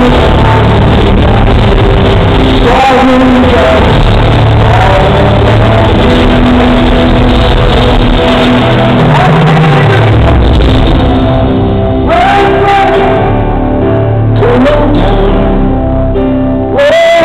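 Live rock band playing in a large hall, recorded from the audience, very loud, with singing in long, sliding held notes over the band.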